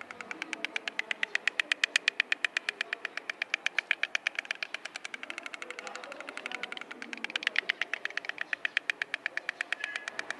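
White stork clattering its bill: a long, fast train of clicks, about ten a second, that swells and fades in loudness several times.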